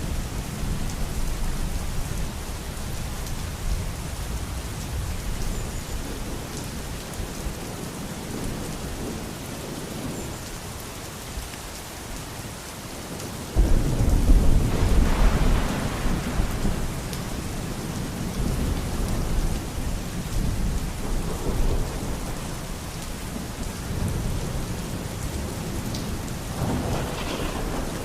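Steady rain falling in a thunderstorm, with thunder rumbling; a loud low thunderclap breaks in about halfway through and rolls away over several seconds.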